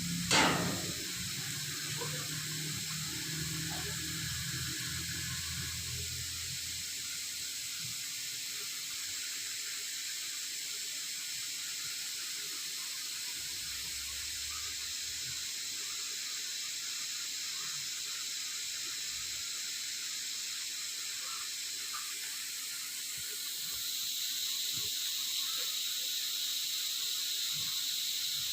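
Steady hiss of spraying water that grows louder near the end, with one sharp, loud knock right at the start.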